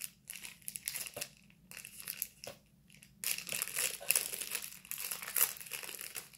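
Snack wrapper of a packaged Swiss roll crinkling and rustling as it is torn open by hand, in irregular bursts with a short pause a little before halfway through.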